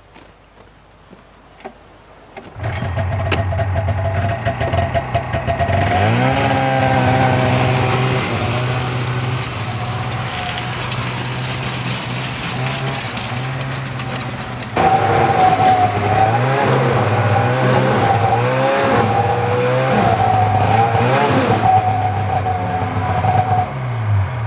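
1997 Polaris Indy Sport snowmobile's two-stroke engine running, revving up and down again and again; it comes in about two seconds in and gets louder about halfway through.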